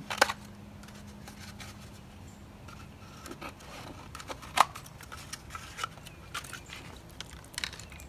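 Scissors cutting a cardboard paper towel tube: scattered snips and crunches of cardboard, the sharpest about four and a half seconds in.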